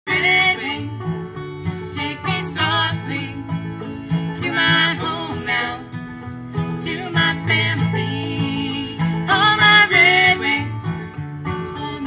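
Acoustic guitar and banjo playing a bluegrass tune, with a wavering melody line over the picking that comes in short phrases.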